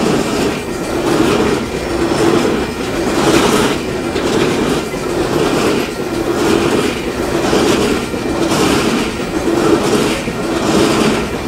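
Coal hopper wagons of a freight train rolling past close by, steel wheels clattering on the rails in a steady rhythm that swells and fades about once a second.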